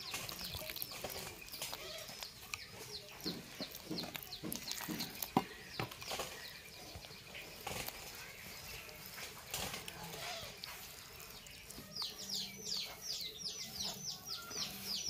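A wooden spatula stirring and scraping wet rice-flour dough in a metal bowl, with scattered sharp knocks against the bowl through the middle. Birds chirping in quick runs of short falling notes at the start and again near the end.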